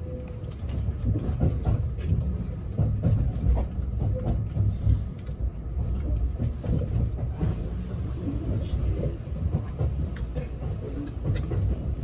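Running noise of a 683 series electric train heard inside the passenger cabin: a steady low rumble with scattered short clicks of the wheels over the track.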